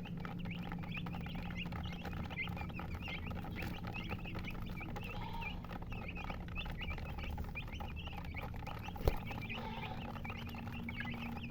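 A group of chicks peeping continuously, many short high chirps overlapping several times a second. A single sharp click about nine seconds in.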